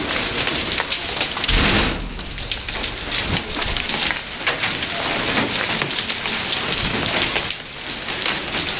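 Heavy hail and rain pelting down: a dense hiss crowded with many sharp ticks of hailstones striking hard surfaces. There is a louder surge about a second and a half in.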